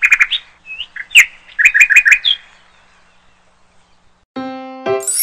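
Quick bird chirps and tweets for about two and a half seconds, then a short gap. About four seconds in, a jingle of bright keyboard notes starts, with a high shimmering sparkle just before the end.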